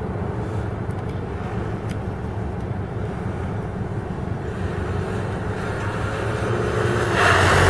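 Mitsubishi Galant running at low revs while it manoeuvres slowly. About seven seconds in, the sound gets louder and its tyres begin to squeal on the wet asphalt.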